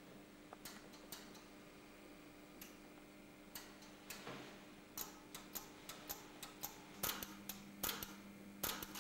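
Relays in a small automatic telephone exchange clicking as they switch: sharp single clicks at irregular spacing, sparse at first and growing busier about halfway through. A steady low hum lies under them, joined by a second, lower hum about seven seconds in.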